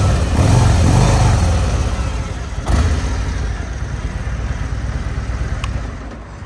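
Harley-Davidson Ultra Limited's Milwaukee-Eight V-twin engine running, revved at the start and again about two and a half seconds in, each time dropping back toward idle.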